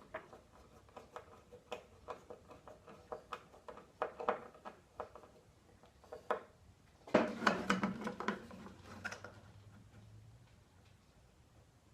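Light knocks and clicks of wooden boards, metal drawer slides and tools being handled, with a busier stretch of clattering about seven seconds in.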